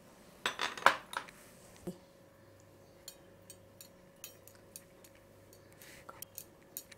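Clinks and knocks of kitchenware as ingredients go into a steel mixer-grinder jar. A quick clatter comes about half a second in and a single knock near two seconds, followed by a few light, scattered clicks.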